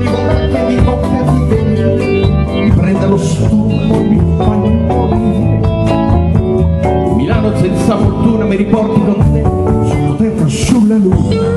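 Live pop band playing: electric guitar and keyboards over a steady drum beat.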